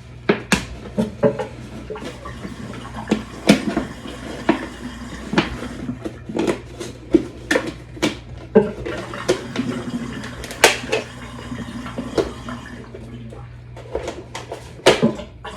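Utensil clinking and scraping against a dish, dozens of sharp irregular knocks, with some sloshing of liquid, as curdled milk is handled.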